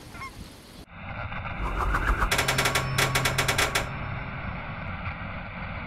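Sound effects for a TV channel logo ident. It starts with a sudden change of sound about a second in, then a rapid rattling burst of evenly spaced strokes, about eight a second, lasting a second and a half midway, over a steady low hum.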